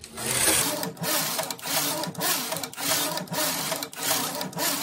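Silver Reed SK840 computerised knitting machine carriage pushed back and forth across the needle bed, knitting single-bed jacquard rows: a rasping whir broken by short dips about twice a second.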